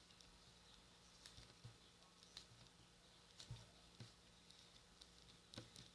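Homemade slime made from glue, talc and shaving foam being squeezed and worked by hand, giving faint, scattered clicks.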